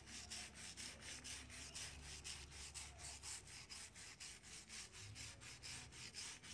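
Small hand brush scrubbing dry against a palm trunk's fibrous bark in quick, even back-and-forth strokes, about five a second, rubbing off black fungus.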